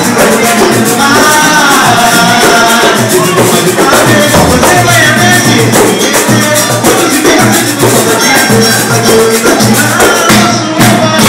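Pagode music played by a band: singing over dense percussion, with a fast, steady high rhythm of shaken percussion.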